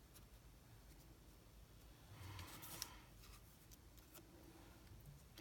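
Near silence with a faint, brief rustle of paper strips being slid and pressed into place on a card, a little over two seconds in, ending in a small tick.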